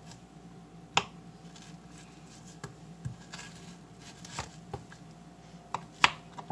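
Kitchen knife cutting potato slices on a plastic cutting board: a few separate sharp knocks of the blade hitting the board, the loudest about a second in and near the end.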